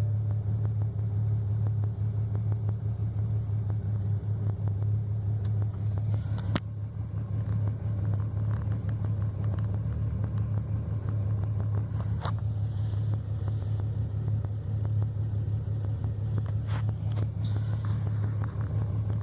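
BMW 335i turbocharged 3.0-litre inline-six idling with a steady rumble, a few sharp clicks here and there. It is running with a misfire that the owner puts on cylinder 5, sometimes cylinder 2, despite new spark plugs, coils and remanufactured injectors.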